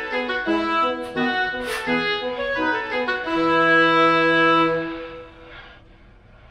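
Background music: a melody of quick changing notes ending on one long held note, then fading out about five seconds in, leaving faint hiss.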